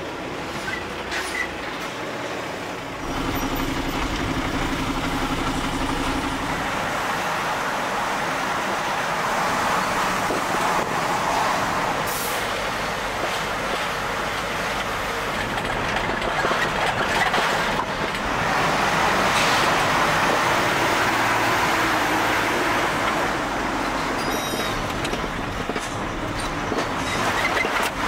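Truck driving: steady engine and road noise, with a brief low hum about three seconds in.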